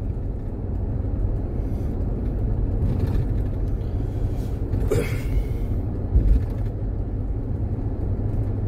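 2018 Chevrolet Tahoe V8 on the move: a steady low rumble of engine and road noise. The engine runs without misfiring after new spark plugs and a cleaned cylinder 8 injector. A brief higher sound comes about five seconds in, and a low bump a second later.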